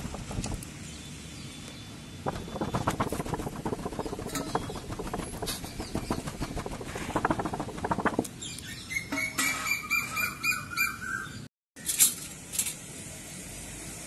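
Glowing lump charcoal in a steel grill pan, with irregular crackles and clicks. About eight seconds in, a bird chirps in a quick series of short notes for a few seconds.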